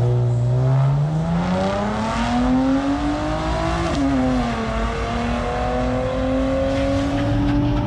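Pickup truck's engine revving hard during a burnout, its pitch climbing steadily for about four seconds, dropping briefly, then held high and creeping up again.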